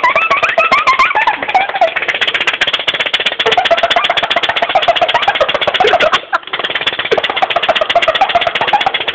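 Pneumatic valves and cylinders rapidly cycling, a fast rattling clatter with a wavering, warbling tone over it. The rattle drops out briefly about six seconds in.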